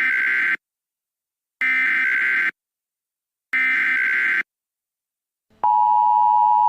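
Emergency Alert System SAME header: three harsh digital data bursts, each just under a second long and about a second apart. The steady EAS attention tone starts near the end.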